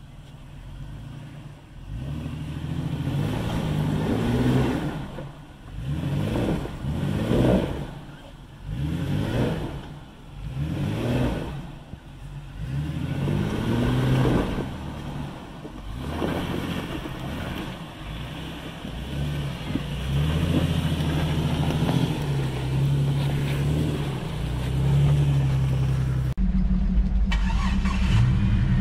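An off-road truck's engine revving up and down again and again, then running steadier. Near the end the sound changes abruptly to a deeper, steady engine drone.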